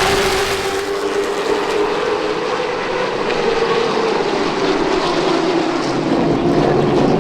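Race car engines running at speed around a short oval, a steady engine drone whose pitch rises slightly and then falls back.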